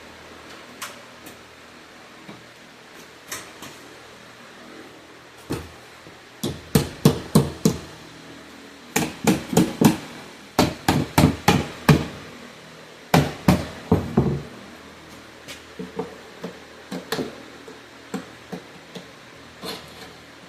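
Hammer blows knocking over the stiff tabs on the bottom of a shipping box. They come in quick runs of four or five sharp strikes, then trail off into lighter, scattered taps.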